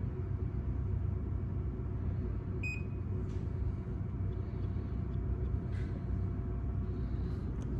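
Dixie Narco soda vending machine running with a steady low hum, and a single short electronic beep about three seconds in.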